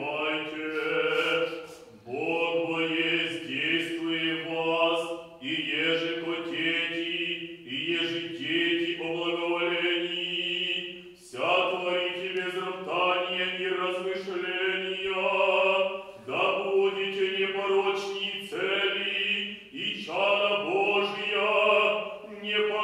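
Orthodox liturgical chant sung by several voices together, in phrases a few seconds long with short breaks between them, over a held low note.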